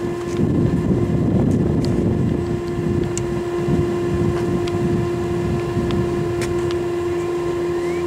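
Small electric blower running with a steady hum, forcing air through the tuyere pipe into a small blast furnace, over an uneven low rushing noise.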